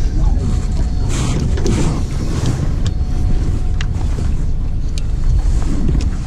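Wind buffeting the microphone over the steady running of a fishing boat's motor while trolling. A few sharp clicks come around the middle.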